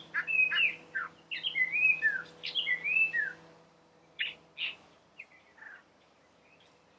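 Collared palm thrush singing: a fast run of varied whistled notes that slide up and down, then a few scattered notes that stop about six seconds in.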